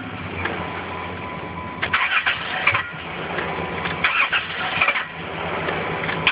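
Car engine being cranked and trying to start, a steady low hum with louder irregular bursts about two and four seconds in.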